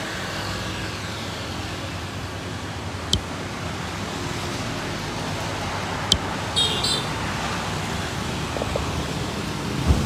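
Steady road traffic noise from a busy street, with two sharp clicks about three and six seconds in.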